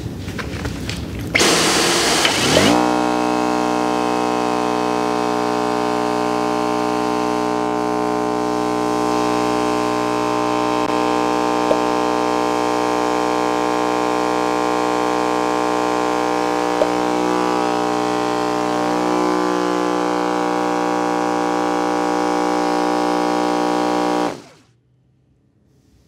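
Dyson V11 Outsize cordless stick vacuum running: a loud rush for the first couple of seconds, then a steady motor hum and whir that holds unchanged until it is switched off and stops suddenly near the end.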